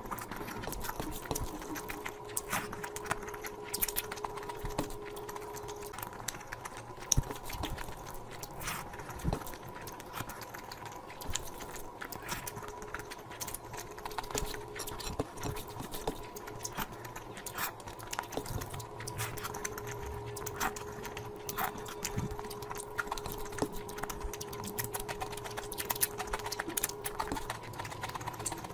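Close-miked eating sounds: a dense, irregular run of wet mouth clicks and chewing, over a faint steady hum.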